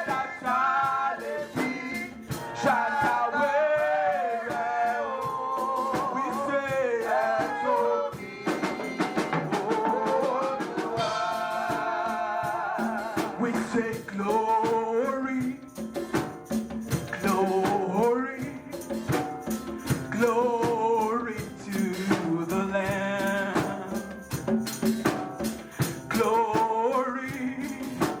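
Live gospel praise music: voices singing a worship song over a steady beat of drums and hand percussion.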